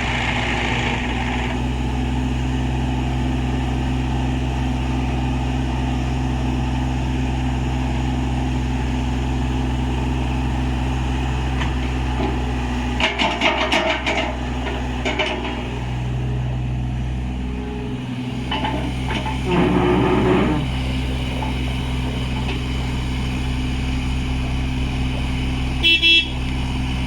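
Kubota KX101-3A mini excavator's diesel engine running steadily, with brief clattering bursts about halfway through. Its horn gives two short toots near the end.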